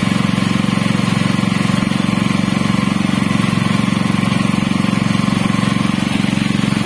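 Honda GP200 engine, a 196 cc four-stroke single-cylinder OHV petrol engine, running steadily at a constant speed with an even, fast firing pulse.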